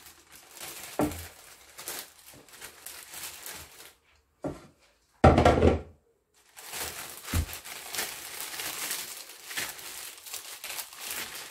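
Clear plastic zip bag crinkling as sticky date paste is packed and pressed into it by hand. A loud heavy thump comes about five seconds in, and lighter knocks come before and after it.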